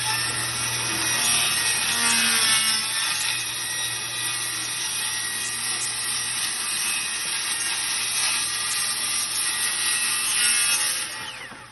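Circular saw running and cutting through a wooden board: a steady, loud saw noise that stops near the end as the cut finishes.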